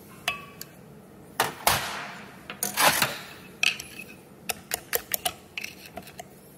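Steel snap ring and a metal pick clicking and scraping against the input-shaft bearing bore of an NV241 transfer case as the ring is worked into its groove. A few sharp clicks, two longer scrapes between about one and a half and three seconds in, then a run of light metallic ticks.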